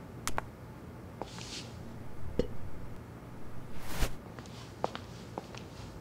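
Isolated foley-like clicks, taps and knocks with a few soft rustles, including a black high-heeled mule being pulled off a foot and dropped onto a wooden floor, and footstep-like taps. The sharpest click comes just after the middle, followed by several small ticks.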